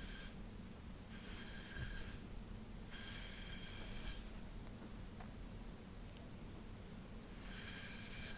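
Slow, scratchy strokes through hair: four unhurried passes, the last near the end after a few seconds' pause.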